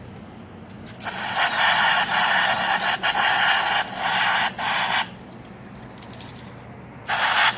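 Aerosol throttle body cleaner sprayed through its straw nozzle onto a throttle body, hissing in bursts: a long spray broken into a few spurts starting about a second in, then another burst near the end.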